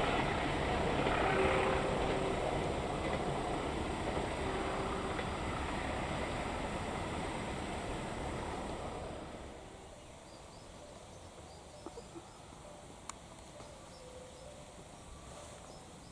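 A passing train's rumble fading away as it recedes, dying out about two-thirds of the way in. Then a quiet outdoor background with faint chirps.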